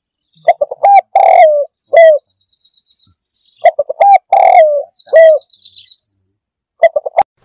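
A dove cooing: two phrases of short coos, each closing with longer coos that drop in pitch at the end, then a few quick notes near the end.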